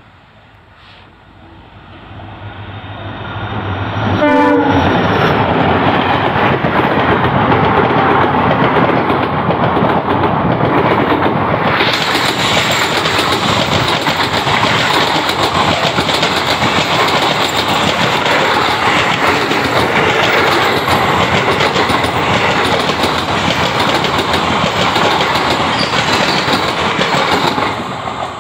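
Passenger express train passing at speed close by. A short horn blast sounds about four seconds in as the locomotive nears, then a long loud rush and clatter of coach wheels over the rail joints, getting hissier about twelve seconds in and dropping off just before the end as the last coach goes by.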